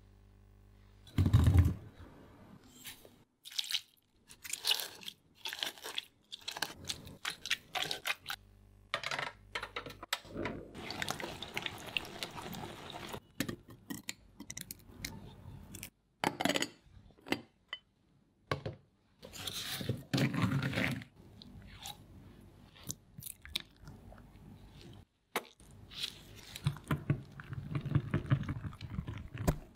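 Close-miked food-preparation sounds: short taps and clinks of utensils and containers, and stretches of stirring or mashing. Near the end comes a few seconds of a wire whisk beating cream in a glass bowl.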